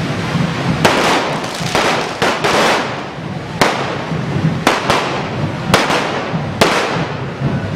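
Hand-held firework fountains on correfoc pitchforks spraying sparks with a continuous rushing hiss. Sharp firecracker cracks go off repeatedly, roughly one every half-second to a second.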